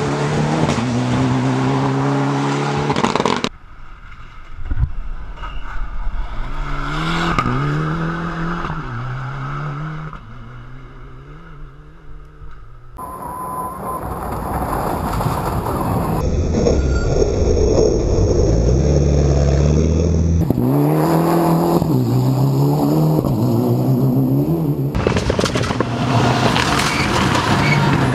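Mitsubishi Lancer Evolution rally car's turbocharged four-cylinder engine accelerating hard on a rally stage, its pitch climbing and dropping again and again through gear changes. The sound comes in several short passes spliced together, and is quieter for a few seconds in the middle.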